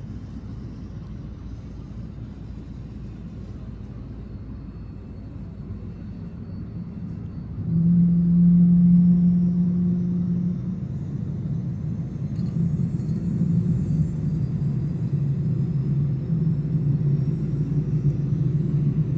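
Lockheed C-130 Hercules four-engine turboprop on approach, a steady low rumble that suddenly grows louder about eight seconds in, with a strong steady low hum for a few seconds, then stays louder with a low droning hum as the aircraft closes in.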